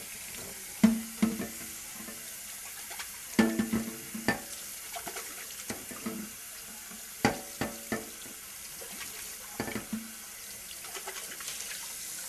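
Kitchen tap running steadily into a sink while dishes and utensils are handled, with a scatter of sharp clinks and knocks that ring briefly, in clusters about a second in, around four seconds, around seven to eight seconds and near ten seconds.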